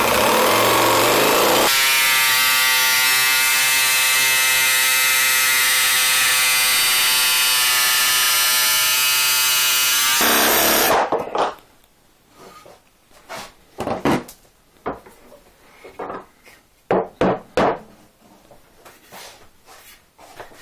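Bosch EasySaw 12 cordless saw, used as a jigsaw, running steadily while cutting through an 18 mm glued-laminated pine board, then stopping about eleven seconds in. Several short knocks and rubbing of wood follow as the cut board is handled.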